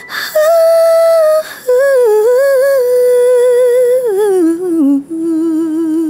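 A single high voice humming a slow wordless melody: long held notes with a light vibrato, stepping down in pitch about four seconds in and settling on a lower held note.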